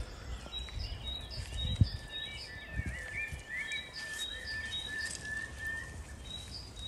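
Birds chirping and whistling in many short, repeated calls, with a single dull thump a little under two seconds in.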